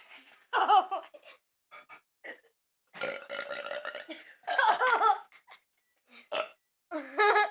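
A child's deliberate burp, one long steady belch of about a second starting around three seconds in, with children laughing before and after it.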